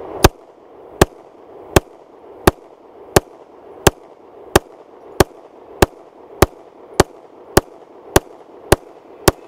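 Beretta APX 9mm striker-fired pistol being fired in steady slow fire: about fourteen sharp shots, a little more than one a second, the pace quickening slightly toward the end.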